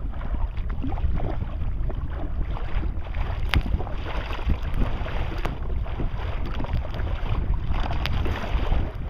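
Wind buffeting the microphone in a steady low rumble on a kayak on the water, with a few sharp ticks and splashy noise over it.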